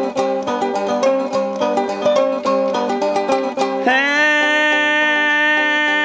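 Sasando gong, a bamboo tube zither with a lontar-palm-leaf resonator, plucked in a quick run of ringing notes. About four seconds in, a man's voice comes in on one long held note over it.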